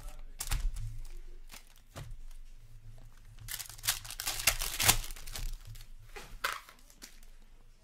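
Foil wrapper of a hockey trading-card pack being torn open and crinkled by hand: a few sharp crackles, then a dense run of crinkling midway through, and one last crackle later on.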